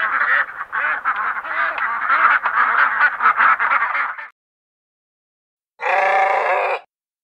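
Duck quacking rapidly for about four seconds, then stopping. After a short silence, a sheep gives a single bleat about a second long.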